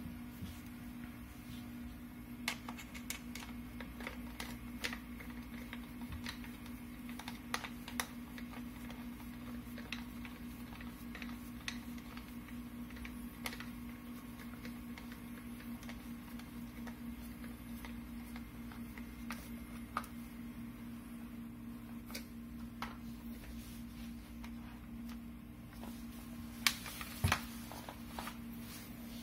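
Scattered light clicks and taps of disassembled rifle parts being handled, with two louder clicks in quick succession near the end, over a steady low hum.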